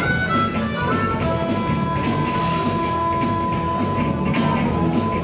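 Live blues-rock band playing: a harmonica holds long notes over electric guitar, bass and drums, with the cymbals ticking steadily about four times a second.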